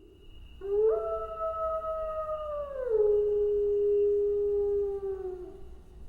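A wolf's howl: one long call that starts about half a second in and holds a high pitch, then drops to a lower pitch about halfway through and holds there before trailing off near the end.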